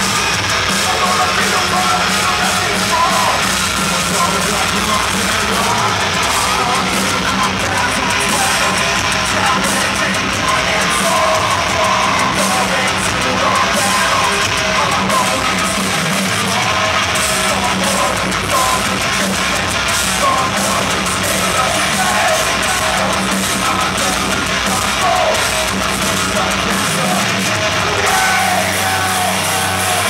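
Heavy metal band playing live at full volume, with distorted guitars, pounding drums and shouted vocals, heard from within the audience.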